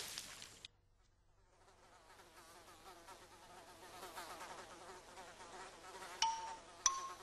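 The tail of a louder noise dies away in the first second. Then comes a faint buzz of flies, wavering in pitch. Near the end, two bright chime notes sound about half a second apart, the second a little higher.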